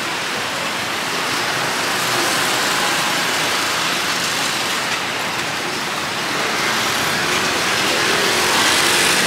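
Steady street traffic noise of passing cars and motorbikes, growing a little louder toward the end.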